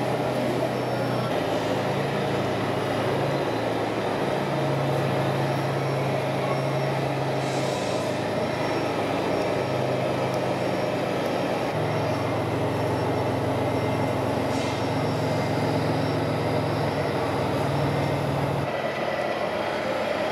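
Low engine-like hum that shifts pitch in steps several times and cuts off near the end, over a steady background of noise.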